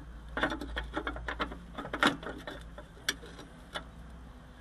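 Irregular small clicks and knocks as gloved hands handle the VW T2 bus's accelerator pedal at its broken hinge, whose pivot loops are worn away; the loudest knock comes about two seconds in.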